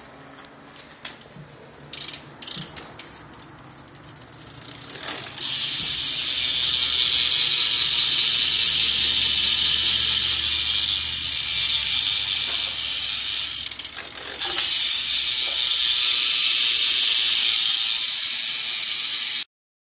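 BMX rear hub freewheeling as the back wheel is spun, the pawls ratcheting: a few scattered clicks, then from about five seconds in a loud, steady, high-pitched ratcheting buzz that dips briefly about fourteen seconds in, picks up again, and cuts off suddenly near the end. The hub is a Salt Plus, the rider thinks.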